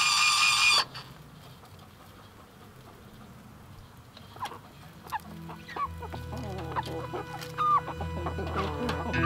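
Domestic hens clucking, soft short calls that start about four seconds in and grow more frequent. Before that, a loud, wavering high whine stops abruptly just under a second in.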